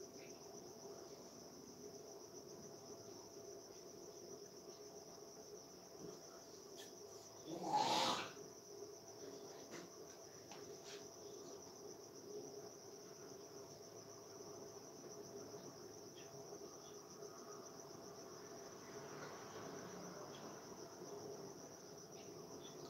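Faint, steady chirring of night insects. About a third of the way in there is one brief, louder noise lasting about a second.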